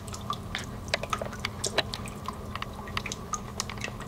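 Water spraying from a two-handle kitchen faucet whose swivel spout is off, the droplets landing as many irregular small ticks and splats over a steady low hum. The spray comes from the retaining ring that holds the spout down being left off.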